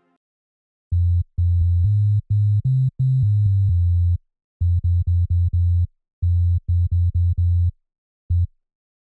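Deep electronic synth bass playing a choppy riff of short, staccato notes and a few held ones, broken by brief pauses. It starts about a second in and stops shortly before the end.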